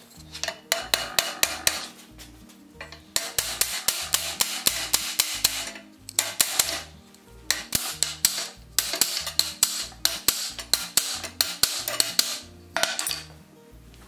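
Hand hammer striking a red-hot iron bar clamped in a bench vise, in quick runs of about five blows a second with short pauses between runs, while forging a buggy seat iron.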